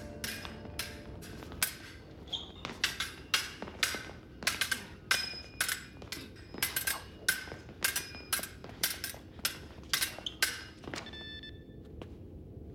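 Fencing foils clashing in quick, irregular exchanges, each metal-on-metal strike ringing briefly. The clashing stops about eleven seconds in.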